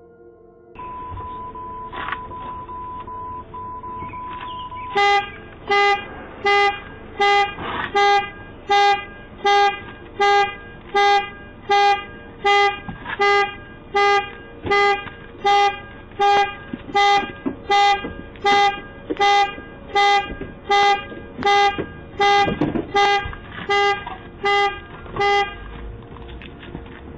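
Car security alarm going off: the car's horn honks over and over, about one and a half honks a second, for some twenty seconds, then stops near the end. A steady high beep comes a few seconds before the honking starts. The sound is heard through a doorbell camera's microphone.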